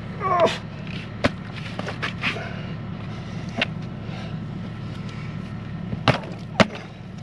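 A steel spade knocking and scraping into clay soil at the bottom of a trench, a few sharp knocks, the last two close together near the end. A steady low engine hum runs underneath.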